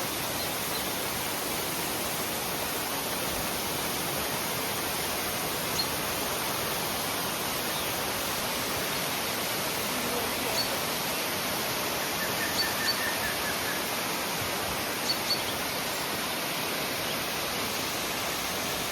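Waterfall pouring, a steady rush of water. A few short, faint high chirps sound over it now and then.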